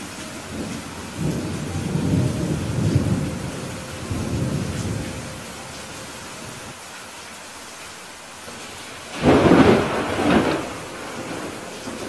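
Steady rain with thunder. A low rolling rumble fills the first few seconds, then a sharper, louder crack of thunder comes about nine seconds in, with a second peak about a second later.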